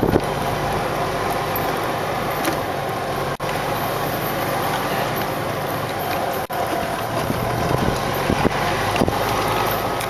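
Golf cart driving across the pasture while towing a logging chain drag: a steady vehicle noise that breaks off for an instant twice.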